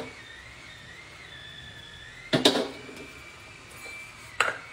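Iron wok and metal spatula clattering on a gas burner: a loud clatter about two seconds in and a sharper single clank near the end, over a steady faint hiss with a thin wavering high tone.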